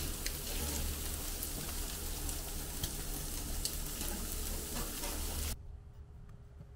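Meat sizzling on a gas grill's grate, a steady frying hiss with scattered crackles. It cuts off abruptly about five and a half seconds in.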